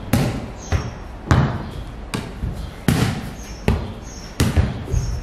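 A light ball kicked back and forth and bouncing on a tiled courtyard floor: sharp smacks about once or twice a second, each with a short echo off the surrounding walls.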